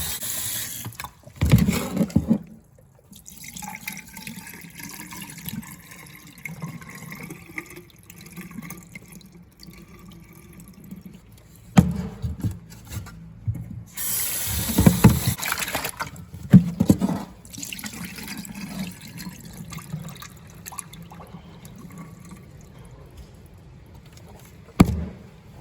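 Water from a sink tap running in two short spells as skinned squirrel carcasses are rinsed, with water splashing and a few knocks of handling in the sink between.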